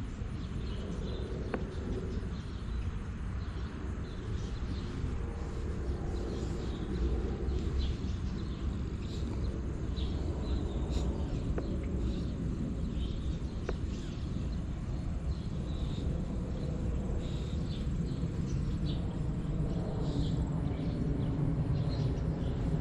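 Outdoor yard ambience: a steady low rumble with faint, scattered high chirps from insects and birds.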